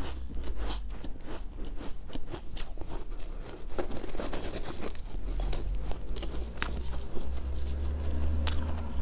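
Close-up crunching as a person bites into freezer frost and chews it. Sharp, irregular crackling crunches run throughout, over a steady low rumble.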